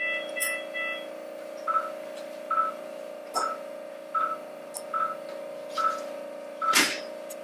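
Operating-room patient monitor beeping a short single-pitched pulse tone at an even pace, a little faster than once a second, over a steady equipment hum. A brief higher multi-note tone sounds at the start, and there are two short sharp noises, one midway and a louder one near the end.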